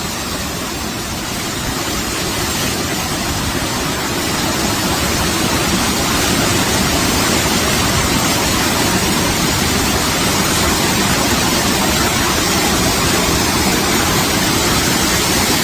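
Steady rushing noise of flowing river water, growing a little louder over the first several seconds and then holding even.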